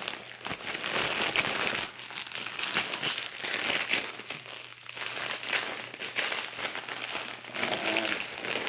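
Clear plastic bag crinkling and rustling in uneven bursts as it is handled and pulled open.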